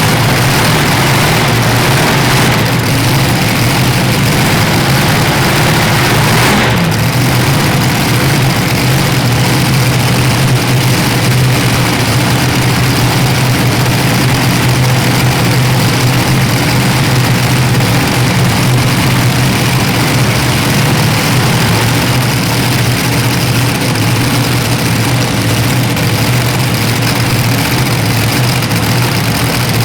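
Heavy engine of a pulling truck or tractor running loud and steady, with a brief change in tone about seven seconds in.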